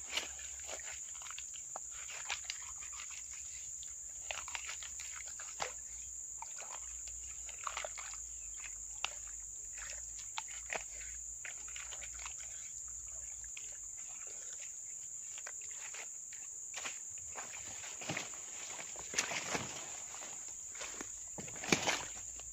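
Dry leaf litter and soil rustling and scraping in short, irregular bursts as a small blade and a hand clear around a hole in the ground. The bursts are busiest near the end. A steady high-pitched buzz runs underneath.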